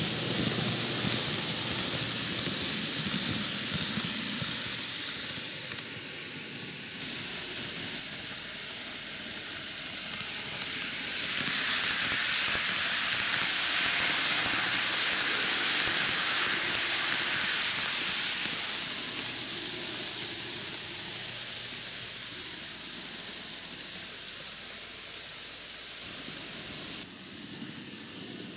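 N gauge model train, a ten-car Micro Ace Keio 9000 series set, running on TOMIX superelevated track: a steady hissing rattle of wheels and motor on the rails. It is loud at the start, dips, grows loud again about halfway through as the train passes close, then fades as it runs away.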